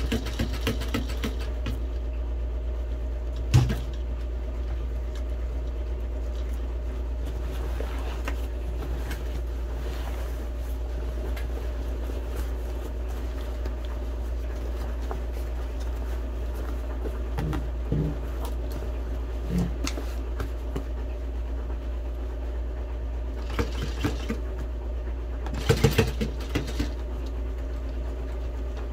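Steady low machine hum with a few short knocks and clicks from handling the work, the loudest a little after three seconds in and around twenty-six seconds.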